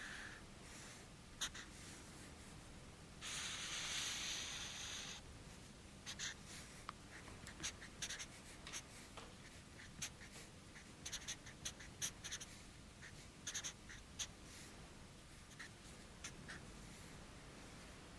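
Felt-tip marker pen drawing on paper: one long stroke about three seconds in, then many short, quick strokes and dabs.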